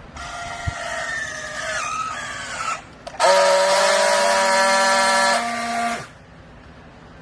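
Clothes scrap baler's hydraulic machinery giving off a pitched whine that slides slowly downward. After a short break a much louder, steady horn-like tone sounds for nearly three seconds and cuts off suddenly.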